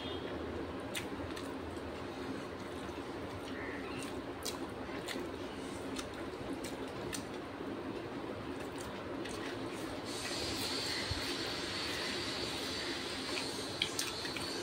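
Hands mixing and scooping rice on a metal plate and a banana leaf: scattered soft clicks and squishes over a steady background hum. A higher steady hiss joins about ten seconds in, and there are a couple of sharper clicks near the end.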